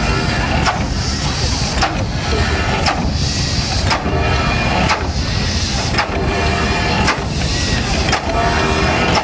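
Replica Fardier de Cugnot steam carriage under way: a sharp knock repeats about every three-quarters of a second, with hissing puffs of steam between the knocks over a steady low rumble.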